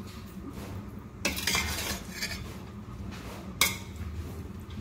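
Metal spoon scraping through cooked rice and knocking against a steel cooking pot as biryani is mixed, with one sharp clink a little past halfway. A faint steady low hum runs underneath.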